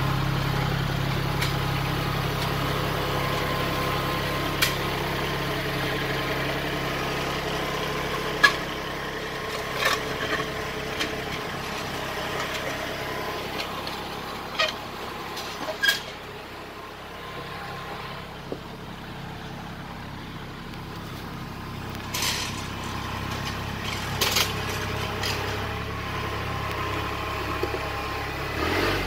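Kubota L3901 compact tractor's three-cylinder diesel engine running steadily, its note dropping about a quarter of the way in and the sound growing quieter for a while in the middle before picking up again near the end. A few sharp knocks and clanks sound now and then over the engine.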